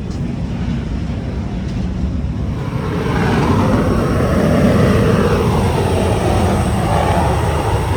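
Aircraft flying past, a rushing jet noise that swells from about three seconds in and drops in pitch as it goes by.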